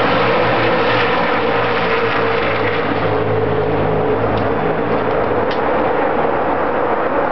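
Race cars' engines running on the track, a continuous loud drone with a steady low hum that eases a little about halfway through.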